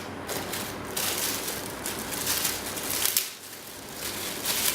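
Rustling and crinkling of packaging as the monitor's accessory cables are handled and unpacked, in irregular surges with a short quieter pause a little past three seconds in.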